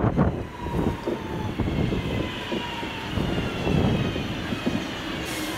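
A train running at the station, its whine slowly falling in pitch, over a low rumble.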